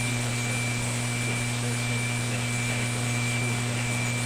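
Software-defined radio receiver in AM mode putting out steady static hiss, with a steady whistle and a low hum underneath and no station audio coming through.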